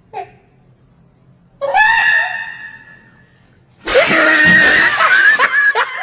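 A man's high-pitched shrieking laughter: a long held squeal about a second and a half in, then a loud scream near four seconds that breaks into quick, repeated laughs.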